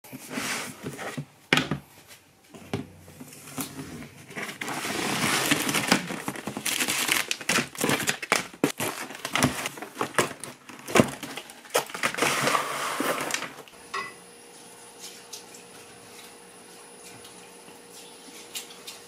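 Cardboard boxes being handled and opened: crinkling, rubbing cardboard and packing material with sharp knocks and flaps. About 14 seconds in this cuts off to a faint steady room hum.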